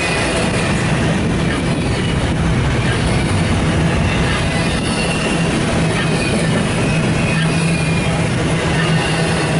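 Double-stack intermodal freight train rolling past at close range: a steady rumble of cars on the rails, a low drone underneath, and faint wheel squeal.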